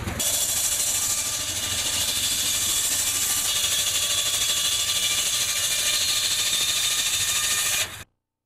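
Saw cutting wood: a steady, high-pitched rasping whine that cuts off abruptly near the end.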